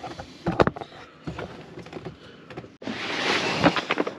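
A few light knocks and clicks of handling, then a sudden switch to a loud, steady rush of a snowmobile running across lake ice, with wind on the microphone.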